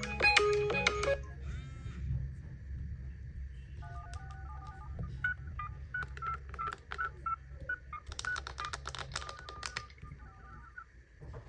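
The last notes of a marimba-like ringtone stop about a second in. Then a phone keypad plays short dial-tone beeps at changing pitches as a number is tapped in, mixed with taps on the screen.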